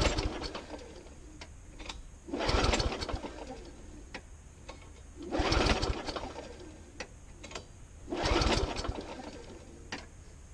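Walk-behind petrol lawnmower being pull-started four times: each tug of the recoil starter cord spins the engine over in a second-long burst that dies away without it catching.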